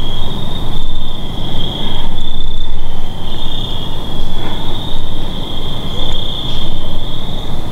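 Crickets chirping in a steady high-pitched chorus, over a low rumbling noise that swells and fades.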